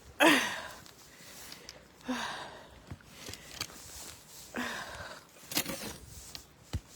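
Snow being shoveled by hand: three strokes about two seconds apart, each a scrape of snow with a short grunting exhale, and a few sharp knocks of the shovel.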